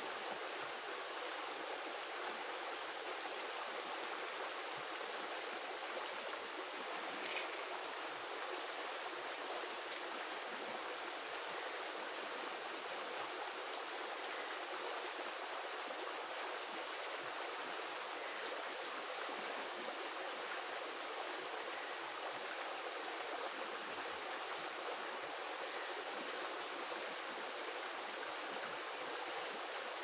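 Fast-flowing mountain stream running over rocks and small cascades, a steady even rush of water.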